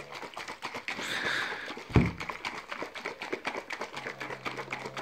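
Protein shaker bottle shaken hard by hand, the protein powder and liquid sloshing and knocking inside in rapid, even strokes, with one heavy thump about two seconds in. A dog moans low in the background near the end.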